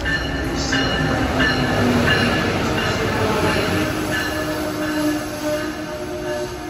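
Amtrak Northeast Regional train, an ACS-64 electric locomotive hauling Amfleet coaches, rolling slowly into the station alongside the platform: a loud, steady rumble of wheels on rail with short high wheel squeals coming and going.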